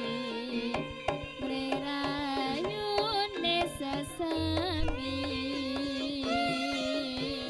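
Javanese jaranan gamelan music played live: a wavering, bending melody line over a steady pattern of hand-drum strokes.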